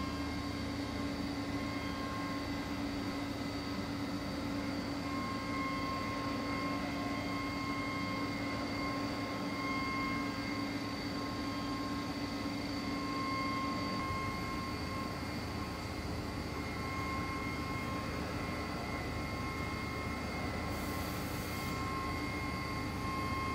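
Röders RXU1000 high-speed milling spindle at 16,000 rpm, finish-milling hardened 1.2311 tool steel with a 3 mm carbide barrel cutter. It gives a steady whine of several held tones over an even hiss. The lowest tone fades about halfway, and a short burst of high hiss comes near the end.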